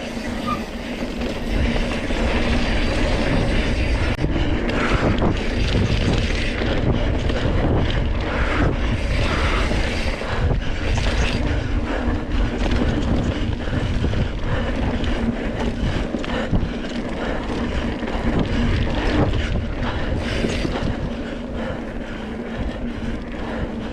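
Surly Krampus single-speed mountain bike ridden fast over a bumpy dirt trail: tyre rumble, wind on the microphone and constant knocking and rattling from the bike over rough ground.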